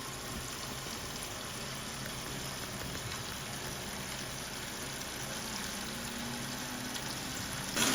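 Steady, faint rush of water running through a commercial water filter system as it is flushed after a cartridge change.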